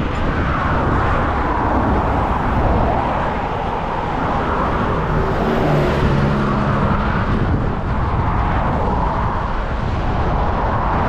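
Highway traffic passing close by, vehicles going past one after another, the tyre noise swelling and fading with each. About halfway through, a small cargo truck goes by with a low engine hum.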